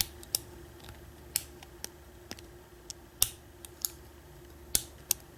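Lock pick and tension wrench working the pins of a six-pin Kwikset Titan pin-tumbler lock during single pin picking: about ten short, sharp clicks at irregular intervals as the pins are lifted and set.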